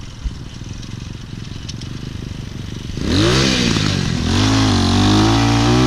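200 cc dirt bike engine running low and quieter for about three seconds, then suddenly much louder as it revs, pitch rising and falling, before holding steady at high revs. The owner finds it rather weak, topping out around 5,000 rpm, and suspects the exhaust is holding it back.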